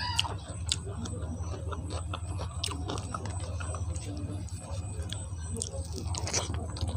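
A person chewing food up close, with irregular wet clicks and small crunches from the mouth, over a steady low hum.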